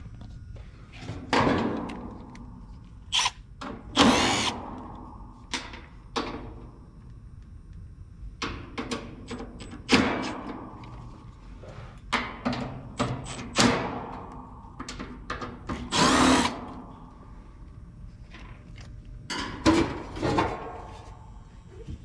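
A cordless power driver running in short bursts, about ten of them, backing out the screws of an air-conditioning condenser's service panel, with a few knocks of the tool and panel between bursts.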